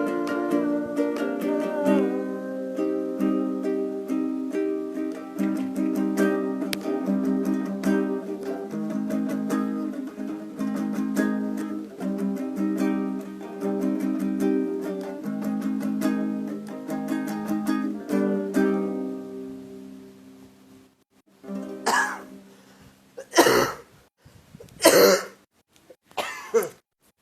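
A plucked string instrument playing notes and chords, fading out about twenty seconds in; then several harsh coughs near the end.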